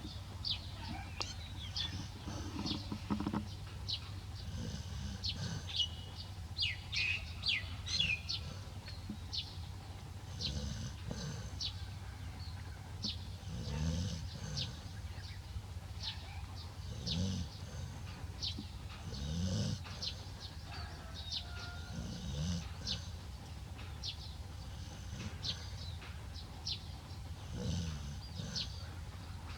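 Deep snores recurring every two to three seconds, clearest in the second half, over a steady low hum, with short high chirps and squeaks throughout.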